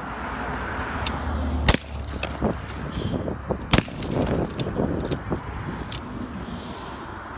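Two shotgun shots about two seconds apart, the loudest sounds here, with fainter sharp reports from other shooters around them.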